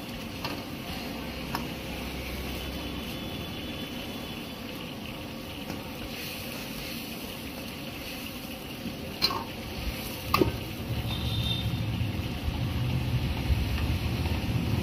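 Steel ladle stirring soup in an iron wok over the flame, the liquid sizzling steadily, with two sharp clanks of the ladle against the wok about nine and ten seconds in. A low rumble rises underneath from about ten seconds in.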